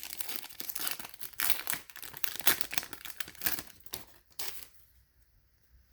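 Baseball card pack wrapper being torn open and crinkled by hand, a dense crackling that stops about four and a half seconds in.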